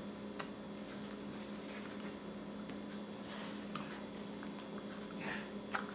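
Steady low electrical hum under faint mouth noises of someone chewing: a few soft clicks and short wet smacks, with a sharper click near the end.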